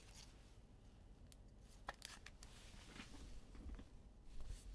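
Near silence with a few faint clicks and rustles of trading cards being handled.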